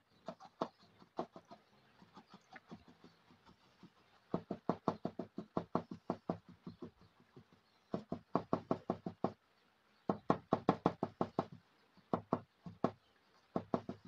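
Rapid taps of a paintbrush dabbing oil paint onto a canvas, the canvas knocking with each dab. The taps come in bursts of about six or seven a second, with short pauses between bursts.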